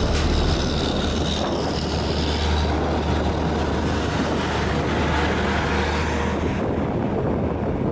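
Heavy diesel truck labouring up a steep grade under an overload, its engine giving a steady deep drone with road noise above it. The deep drone eases about two-thirds of the way through.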